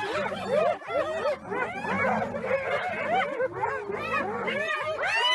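A pack of animals giving many overlapping short, dog-like yips and whines in a continuous chorus.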